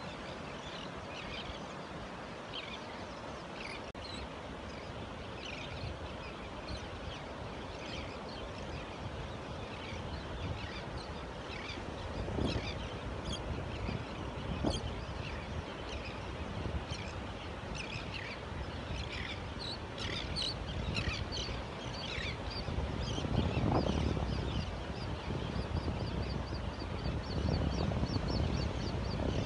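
A flock of terns and gulls calling, many short calls overlapping, busiest about two-thirds through, with a quick, even run of calls near the end. Ocean surf washes steadily underneath, swelling louder a couple of times.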